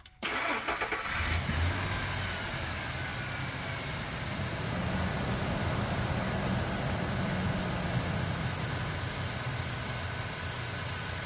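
2000 Ford F-150's 4.2-litre V6 cranking briefly and catching, then idling steadily. A vacuum elbow on the PCV valve hose at the front is leaking and sucking air at idle.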